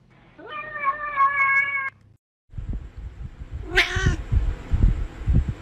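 A cat meows in one long, drawn-out call. After a short break a second cat gives a brief meow over soft, repeated low thuds.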